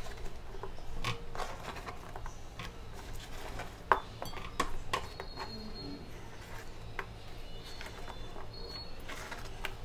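Raw potato sticks scooped by hand off a cutting board and dropped into a glass bowl: scattered light clicks and clacks of potato against glass and board, with a sharper knock about four seconds in.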